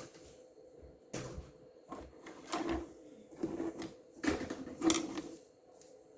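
A series of about six short knocks and rattles from small objects being handled and set down.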